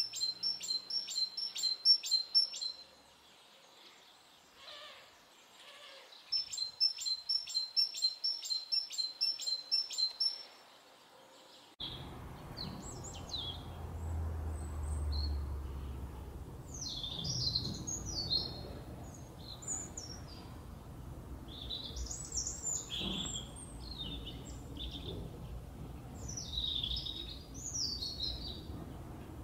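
Small songbirds calling. A bird gives a fast series of repeated high notes twice, about four or five a second. Then several birds twitter and chirp over a low background rumble.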